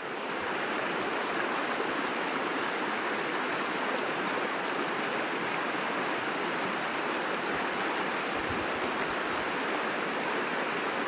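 A creek's water rushing steadily, fading in at the start.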